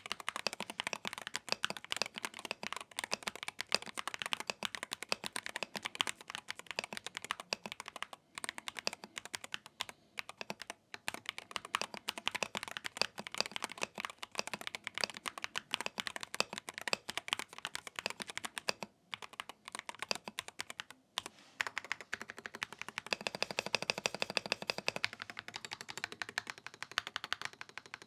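Typing on a Wooting 60HE keyboard fitted with Gateron magnetic Jade switches in a Tofu60 Redux case: a fast, steady stream of keystroke clicks, with a few short pauses.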